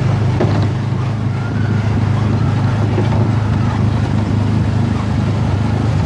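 Engine of an Autopia ride car running steadily as the car drives along the track, a constant low drone heard close up from the car's hood.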